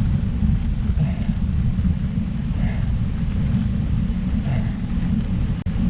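Wind buffeting the microphone of a rider on a road bike: a steady, loud low rumble, with a brief dropout near the end.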